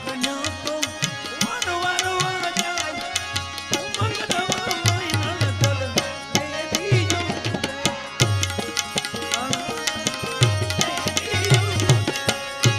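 Instrumental passage of live Gujarati devotional (santwani) music: tabla or hand drums playing a steady, dense rhythm with deep bass strokes, under a wavering melodic line.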